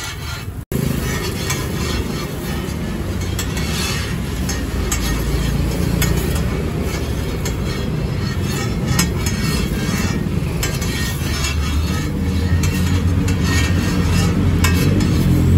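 Street traffic rumble, with a vehicle engine getting louder near the end and scattered light clicks and clinks over it.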